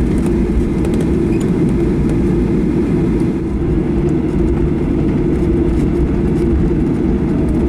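Steady low rumble inside the cabin of a Boeing 737-800 taxiing after landing, its CFM56 engines at idle.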